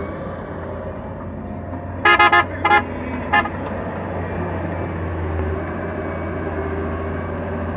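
Daewoo wheeled excavator's diesel engine running steadily as it digs, with a vehicle horn sounding three short toots about two seconds in, the first a little longer than the other two.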